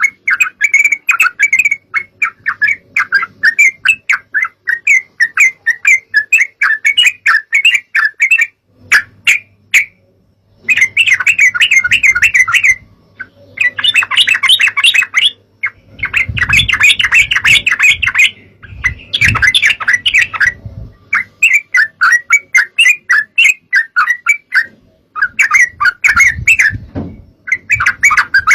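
Yellow-vented bulbul (trucukan) chattering loudly in fast runs of short, bubbling notes, broken now and then by brief pauses.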